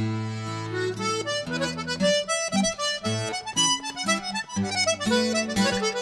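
Button accordion playing an Irish traditional tune, a quick-noted melody over low held notes.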